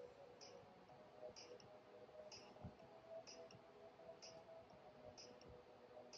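Near silence: room tone with a faint, high tick repeating about once a second.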